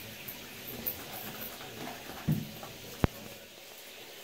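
Soft handling sounds of a wet Shiba Inu being rubbed by hand in a bathtub. A brief low thud comes a little over two seconds in, and a single sharp click about three seconds in.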